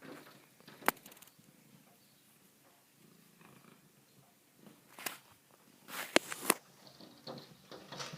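A cat purring, with a few sharp taps about a second in and again around five to six seconds in.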